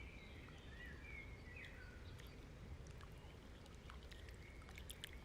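Near silence: faint room tone with a low hum, and a few faint wavering chirps in the first couple of seconds.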